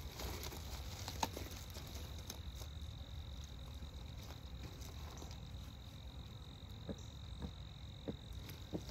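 A steady high-pitched insect trill that stops near the end, over a low rumble, with a few light clicks.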